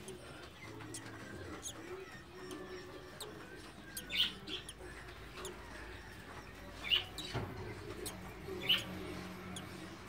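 Budgie chirping: three short high chirps a few seconds apart.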